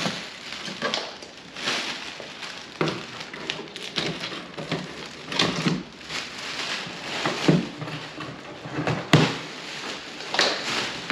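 Plastic air-cushion packing film rustling and crinkling in irregular bursts as it is pulled and handled in a cardboard box, with one sharp click about nine seconds in.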